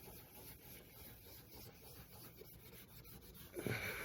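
Scrub pad rubbing cream cleanser over a ceramic-glass stovetop in small circular strokes: a faint, steady scouring, with a brief louder sound near the end.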